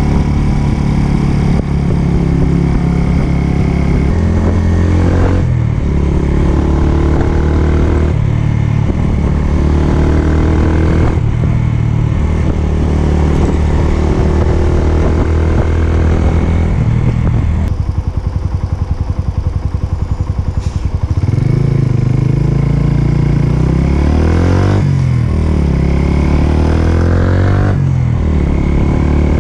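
Suzuki Big Boy 250's single-cylinder four-stroke engine exhausting through an aftermarket Goods tapered cone muffler while riding. The revs rise and fall through the gears. About two-thirds through they drop to a slow, low pulsing for about three seconds, then climb again in rising revs.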